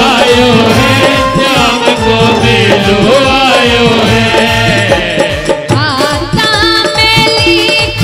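A woman singing a Hindi devotional bhajan live through a PA, over music with a steady beat.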